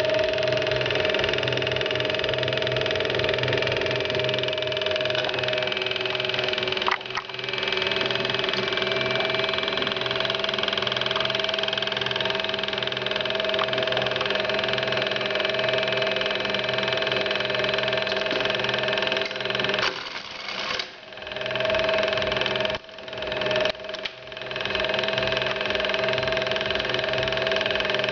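SunSir SS-T4 industrial sewing machine's motor running with a steady hum and a high steady tone. The sound dips briefly about a quarter of the way in and several times near the last third.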